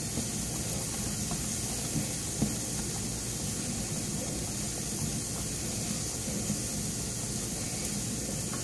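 A hot pan of grits steaming with a steady hiss while a wooden spoon stirs in the cheese, with a few soft knocks of the spoon against the pan.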